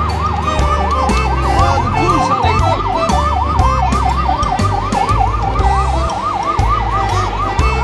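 Electronic siren sound effect from a coin-operated fire-truck kiddie ride: a fast yelping wail, about five rises and falls a second, over the ride's bass beat. The siren stops near the end.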